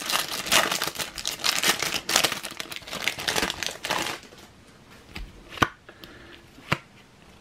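Plastic foil wrapper of a Topps Cricket Attax trading-card pack crinkling as it is torn open and pulled off the cards, for about four seconds. Then a couple of sharp clicks as the stack of cards is handled.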